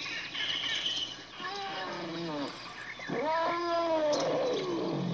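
African savannah elephant calling: a few short calls falling in pitch, then a louder, longer call about three seconds in that rises and falls in pitch.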